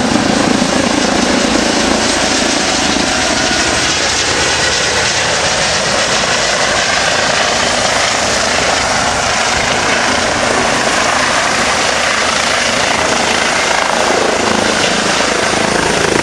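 Eurocopter EC135 trauma helicopter's rotor and turbine noise, loud and steady, as it comes down and lands in a field.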